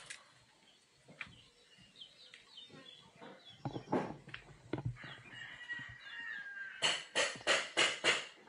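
A rooster crowing in a rural yard, followed by a quick run of about five sharp knocks near the end.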